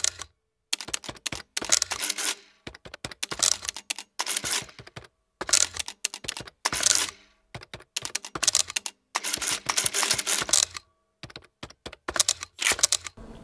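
Rapid clicking like typing on a keyboard, in short bursts broken by moments of dead silence.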